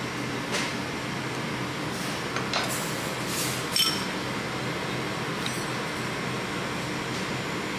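A metal spoon clinking and scraping against a ceramic bowl as thick sauce is stirred: a few light clinks, the loudest about four seconds in, over a steady background hum.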